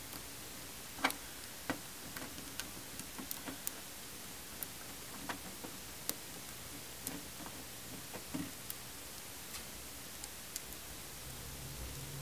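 Small, irregular clicks and taps of a plastic action figure being handled and posed by hand, over a faint steady hiss.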